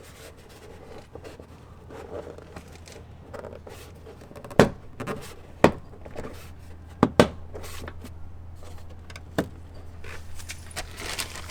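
Plastic wheel-well liner being pushed and worked in between metal fender clips: quiet scraping and rustling, broken by about five sharp clicks and knocks.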